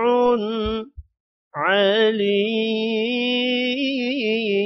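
A man reciting Quranic Arabic in slow, melodic tajweed. The tail of the word "wasi'" ends about a second in, and after a short pause "'alim" begins and is drawn out on one long held note: a prolonged madd at the close of the verse.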